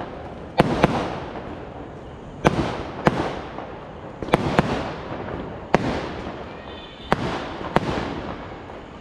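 Diwali firecrackers going off one after another: about nine sharp bangs at irregular intervals, each trailing off in an echo.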